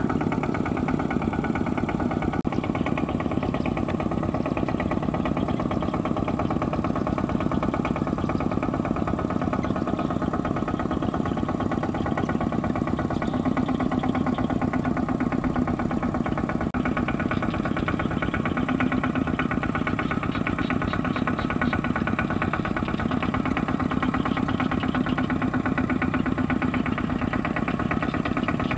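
Two-wheel walking tractor's single-cylinder diesel engine running steadily under load as its cage wheels drive through a flooded rice paddy.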